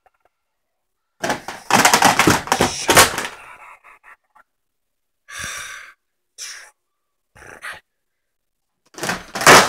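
A person gasping and blowing out hard breaths close to the microphone, in several separate bursts. The longest and loudest comes about a second in, shorter ones follow in the middle, and another loud one near the end.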